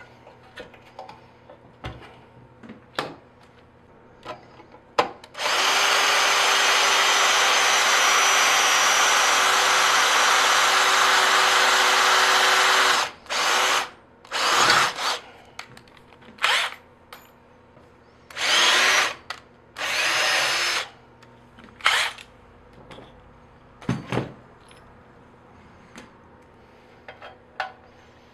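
Electric drill running, most likely drilling the aluminium frame: one steady run of about seven seconds, then several short bursts of a second or less. Light clicks and knocks of handling come between the runs.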